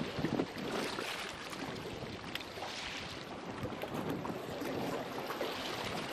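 Steady wind and calm sea water lapping, with a couple of short light knocks.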